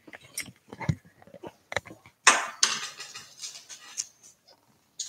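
Handling noise close to a laptop's microphone: scattered light clicks and knocks, with a louder rustling rush about two seconds in.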